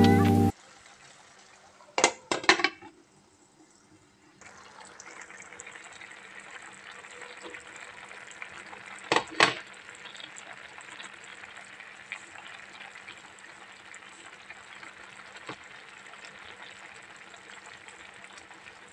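Mussel soup boiling in a pan: a steady crackling bubble that sets in about four seconds in. Two pairs of sharp knocks come about two seconds in and again about nine seconds in.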